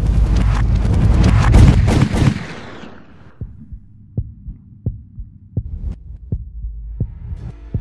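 A loud, harsh wash of noise full of sharp cracks fades away over the first two to three seconds. Then a slow heartbeat sound effect thumps about seven times, roughly once every 0.7 seconds, over a low hum.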